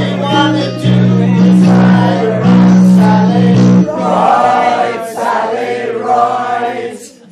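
A small group of women singing a song together over an instrumental accompaniment with held bass notes. It dies away near the end.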